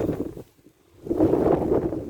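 Wind buffeting the microphone in gusts, a low rushing noise that drops away briefly about half a second in and then comes back strong.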